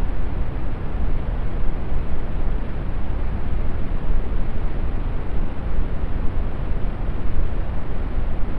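Steady brown noise: an even, deep rumbling hiss with most of its weight in the lows, thinning toward the top, unchanging throughout.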